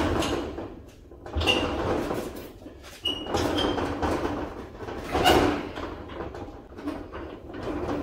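Bolt cutters clamped on a padlock on a steel roll-up door, strained against the shackle without cutting through: the corrugated door rattles and clatters, with a few short metallic clinks. The loudest clatter comes about five seconds in.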